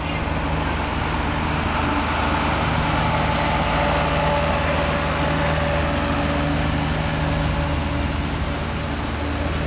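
Water truck's engine running steadily as it drives past on the dirt racetrack, over a hiss of water spraying from its rear spray bar onto the dirt.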